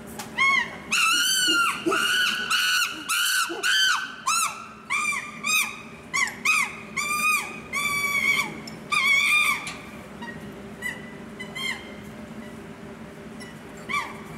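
Chimpanzee calling: a rapid run of loud, high-pitched hoots, each rising and falling, about two to three a second. After about ten seconds the calls grow shorter and fainter and stop near the end. A faint steady hum runs underneath.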